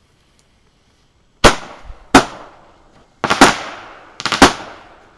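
Ground-launched consumer fireworks firing aerial shots that burst overhead. After a quiet start, two single sharp bangs come less than a second apart, then two quick clusters of rapid cracks.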